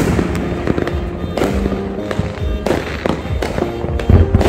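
Consumer fireworks going off overhead: several sharp bangs and crackling bursts, with music playing underneath.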